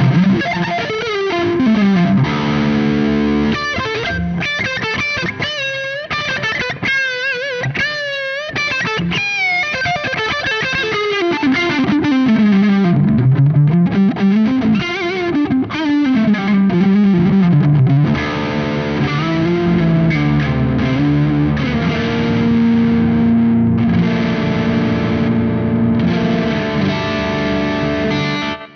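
Electric guitar through a Soldano SLO100 clone tube amplifier on a distorted, overdriven setting. It plays lead lines with bends and fast vibrato early on, sliding runs in the middle, then sustained notes and chords toward the end.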